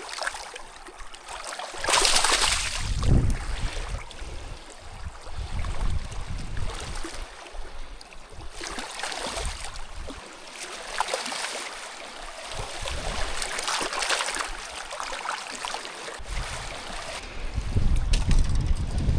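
Water splashing and sloshing around a canoe in surges every few seconds, the loudest about two seconds in, with low wind rumble on the microphone.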